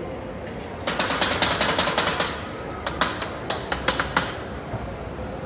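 A fast clatter of sharp clicks, about ten a second, for a little over a second, followed by a sparser run of clicks.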